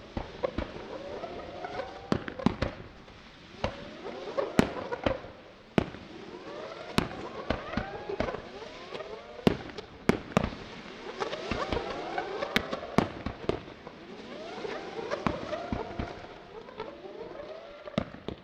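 Daytime aerial fireworks: a rapid, irregular string of sharp bangs, with many short whistles gliding up and down in pitch overlapping between them.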